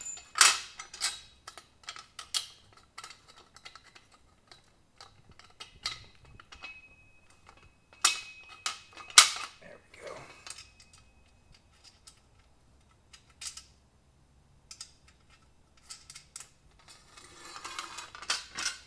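Irregular metallic clinks and clanks of steel bolts being worked into the holes of a steel frame's brackets, with the square tubing knocking as it shifts, separated by short quiet gaps.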